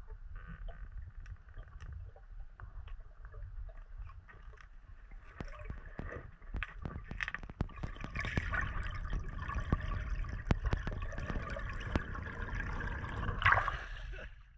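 Underwater sound picked up by a GoPro inside its waterproof housing: a steady low water rumble with bubbling and scattered small clicks. It grows louder about eight seconds in, with one louder burst near the end.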